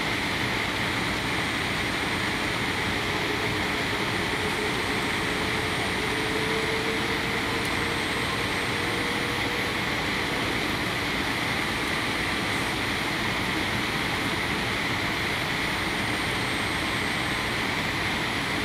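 Steady cabin noise inside a Boeing 787 Dreamliner on approach: the even rush of engines and airflow, with a faint hum that rises slightly in pitch around the middle and then fades.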